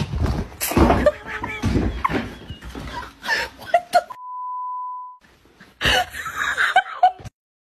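Commotion as a harnessed cat thrashes and scrambles about on the floor, with excited voices and knocks. About four seconds in, a steady beep tone about a second long cuts in, a censor bleep over a word.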